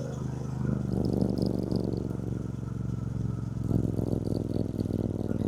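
2024 Triumph Bonneville T120's 1200 cc parallel-twin engine running on the move, eased off the throttle, its note picking up again about three and a half seconds in.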